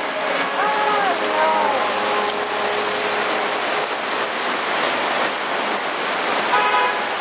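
Heavy rain pouring onto a parasol overhead and a flooded street, a steady hiss, with cars splashing through the standing water. A car horn sounds briefly near the end.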